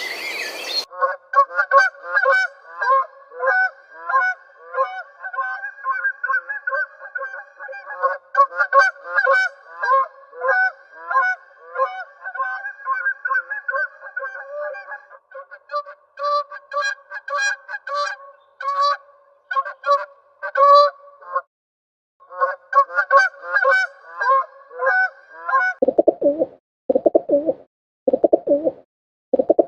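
Geese honking steadily in a dense run of overlapping calls, with a brief break about two-thirds of the way through. Near the end the honking stops and pigeons coo in low, rhythmic phrases, about one a second.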